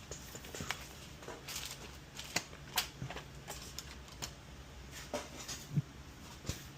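Irregular light clicks and taps of small hand tools being handled at a soldering bench while a chip is worked onto a circuit board, over a faint steady hum.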